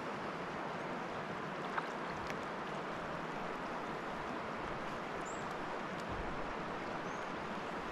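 Steady rush of water from a swollen, fast-flowing river, with a couple of faint high chirps near the end.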